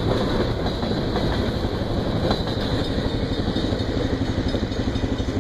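ATV engine idling with an even throb, with the last boxcars of a freight train rolling past more faintly.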